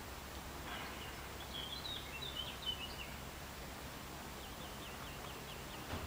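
A small bird chirping in the background in two runs of short high notes: a twittering phrase about a second in and a quick series of chips near the end, over a steady low background hum.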